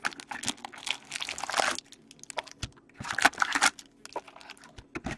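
Foil trading-card pack wrappers crinkling and rustling as the packs are handled and torn open, in two bursts about two seconds apart, with small clicks and taps between.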